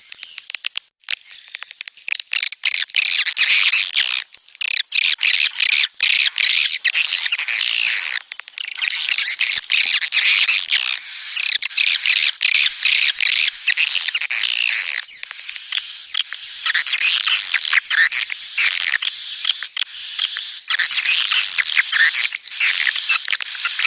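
Edible-nest swiftlets calling: dense, fast chirping and twittering mixed with rapid clicks, with a steady high tone underneath from about halfway through. It is the swiftlet breeding (birahi) call used as a lure sound to draw swiftlets into nest houses.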